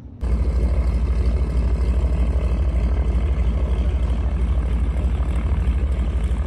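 Loud, steady engine drone with a fast low throb, cutting in abruptly just after the start.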